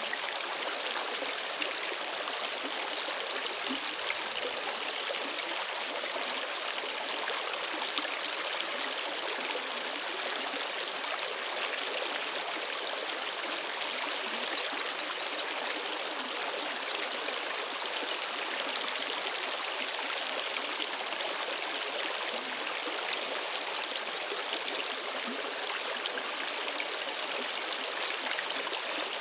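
Running water rushing steadily, like a stream. Three faint, short high trills come through it in the middle of the stretch.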